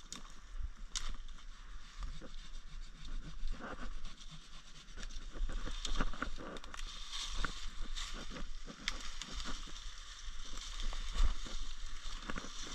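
Footsteps pushing through brush and dry leaf litter, with leaves and branches rustling and irregular twig snaps and cracks.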